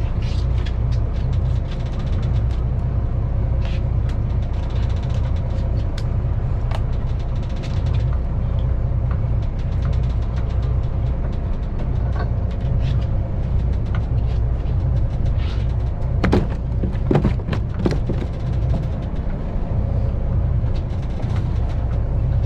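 A fishing boat's engine running steadily with a low rumble, under scattered sharp knocks and clatters from handling on deck, which bunch up about three-quarters of the way through.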